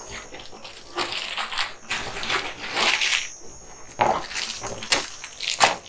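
Sealed plastic bags of Lego bricks crinkling and rattling as they are handled and set down, in several short irregular bursts.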